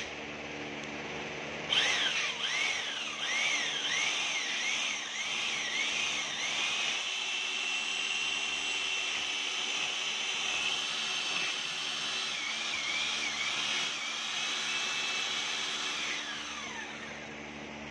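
Handheld electric paddle mixer whirring as it stirs gypsum plaster slurry in a bucket. It starts a couple of seconds in, with its speed rising and dipping in quick pulses for the first few seconds, then runs at a steady speed, and winds down with a falling whine near the end.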